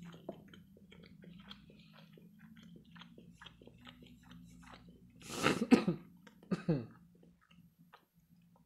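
Close-miked chewing of a mouthful of crab stick: soft wet mouth clicks over a low steady hum. About five and a half seconds in comes a louder short throat noise like a cough, and a second, smaller one a second later.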